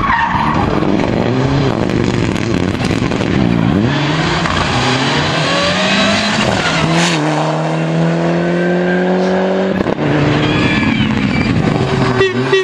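Rally car engine revving hard under acceleration, its pitch climbing and falling as it changes gear. About seven seconds in the revs drop at a shift and then climb steadily until they break off around ten seconds.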